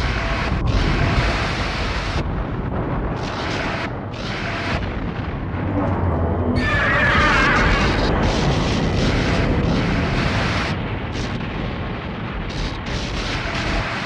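Rumbling, explosion-like monster-movie sound effect: a dense, continuous rumble with hissing crackle that cuts in and out, loudest about seven seconds in.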